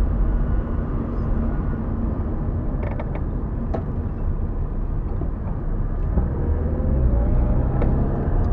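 Road and engine noise heard inside a moving car: a steady low rumble from tyres and engine. There are a few light clicks a few seconds in, and near the end the engine note dips and then rises again.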